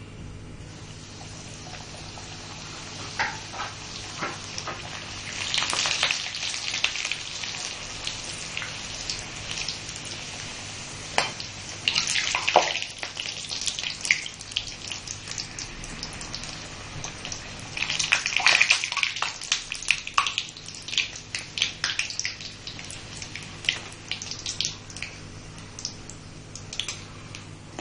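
Rava puri deep-frying in hot oil in a kadai: a steady sizzle with dense crackling that gets busier in spells while a slotted spatula presses and turns the puri.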